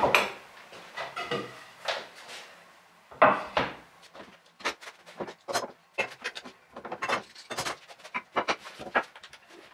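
Wooden bench parts knocking, clunking and sliding against each other as a dry-assembled workbench frame is taken apart. The irregular knocks and taps come quicker and closer together in the second half.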